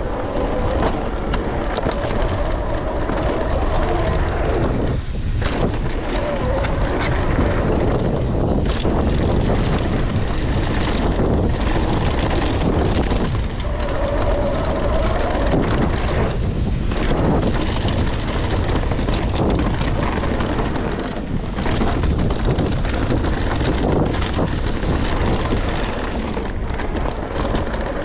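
Riding noise from an electric mountain bike going fast down a dirt trail covered in dry leaves: tyres rolling over leaves and dirt, with wind rushing over the camera microphone. A faint whine comes through briefly at the start and again about halfway.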